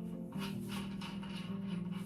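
Background music: sustained chords that change every so often, over a regular beat.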